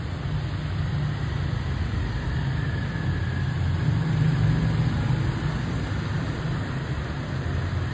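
Steady low rumble of city traffic and engines, swelling slightly a few seconds in.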